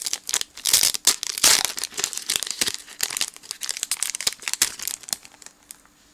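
Foil wrapper of a Pokémon trading-card booster pack crinkling in a series of irregular bursts as it is torn open by hand and the cards are pulled out. The crinkling is loudest about a second and a half in and dies away near the end.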